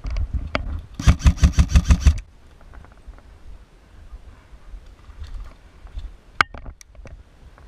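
Airsoft electric gun firing a rapid full-auto burst of about ten shots in just over a second. A single sharp click or crack comes later.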